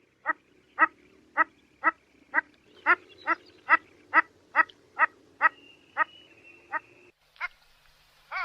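A duck quacking in a steady run of short calls, about two a second, growing quieter and more spaced near the end.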